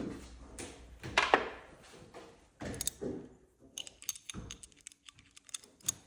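Metal hand tools clinking and knocking against each other and against metal, in scattered sharp hits; the loudest cluster comes about a second in, with a run of small rapid ticks and a dull knock around four seconds.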